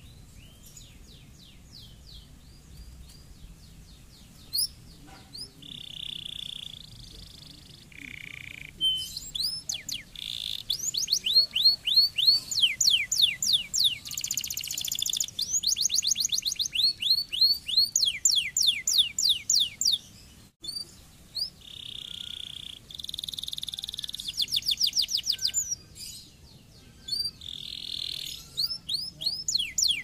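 Canary singing: fast trills of rapidly repeated falling high notes alternating with harsh buzzy phrases, faint at first and loud from about nine seconds in, with a brief break about two-thirds of the way through.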